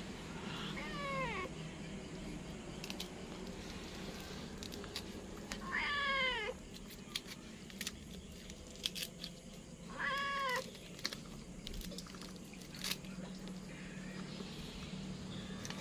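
A cat meowing three times, each a drawn-out call falling in pitch, the second and third louder. Scattered sharp clicks and knocks sound between the calls.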